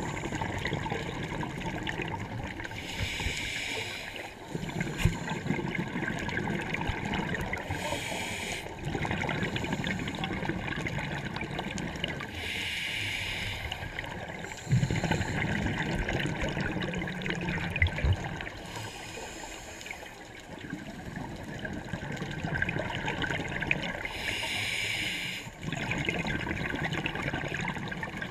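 Scuba diver breathing through a regulator underwater: a short hiss of inhalation roughly every five seconds, each followed by a longer burble of exhaled bubbles.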